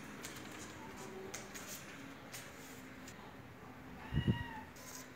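A cat's short meow a little after four seconds in, rising and falling slightly in pitch, over a low thump at the same moment.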